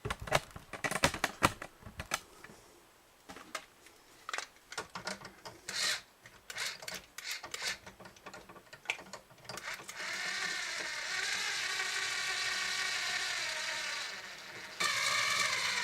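Epiphone FT-130 acoustic guitar being tuned back up after its saddle was refitted: for about ten seconds, clicks and small knocks from handling the strings and tuning machines, then a string ringing steadily, its pitch wavering slightly as the tuner is turned.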